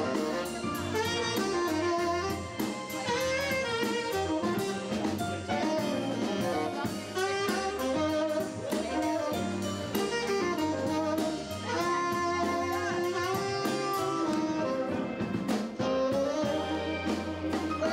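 Saxophone playing a melodic jazz solo over a live band, with a drum kit keeping time underneath.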